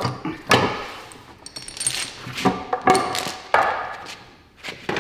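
Heavy steel chain clanking and knocking as it is hauled taut over a wooden post to pull a crushed car body panel, in a string of separate knocks and clinks, some ringing briefly.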